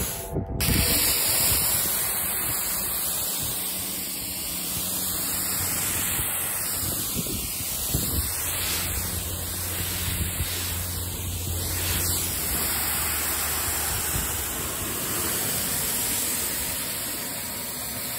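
Electric pressure washer spraying a fan of water over a car's paint and body panels: a steady hiss of spray, with a low hum through much of it.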